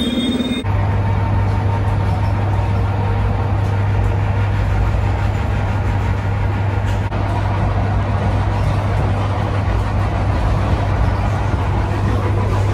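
Suburban electric commuter train running with a steady low hum over a dense rumble, just after a high wheel squeal that stops about half a second in.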